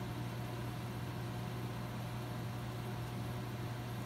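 Sump pump motor running with a steady low hum, pumping water down out of the flooded pit, kept on by its float being held up by hand.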